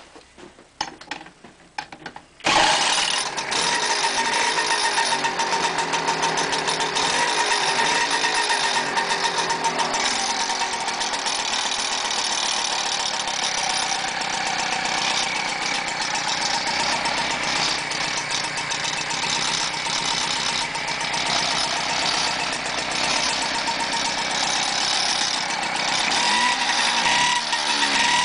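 Peugeot 103 moped's 50 cc two-stroke single-cylinder engine being started: a few clicks, then it catches about two and a half seconds in and runs steadily, the revs rising and falling a little near the end.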